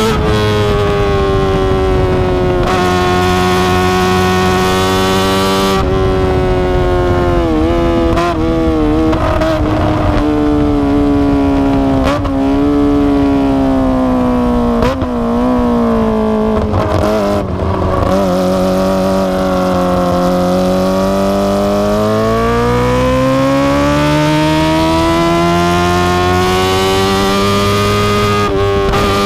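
Kawasaki ZX25R's 250 cc inline-four engine running through an Akrapovic exhaust while riding. The pitch wavers and dips several times in the middle, then climbs steadily over the last ten seconds as the bike accelerates.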